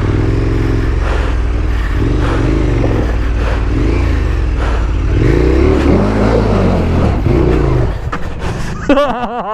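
KTM 1290 Super Adventure S's V-twin engine revving up and down repeatedly, the bike labouring to push through deep water and mud in a bog crossing.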